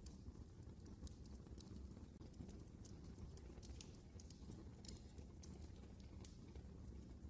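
Wood fire crackling in a fireplace, faint: irregular sharp pops and snaps over a steady low rumble.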